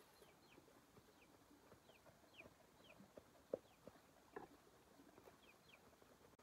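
Faint, short, falling high peeps from a bird, repeated roughly twice a second, with scattered soft knocks; the loudest knock comes about three and a half seconds in.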